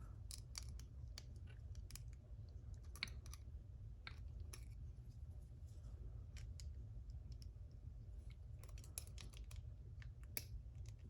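Faint, irregular clicks and ticks of small metal tools against a Mul-T-Lock MT5 lock core as its retaining C-clip is worked off, with a cluster of quick clicks about nine seconds in.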